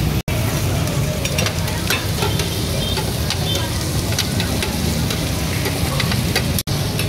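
Pork sisig sizzling on a hot black sizzling plate over a gas burner while a metal spoon stirs and scrapes it, mixing in the egg, with frequent small clinks of the spoon against the plate.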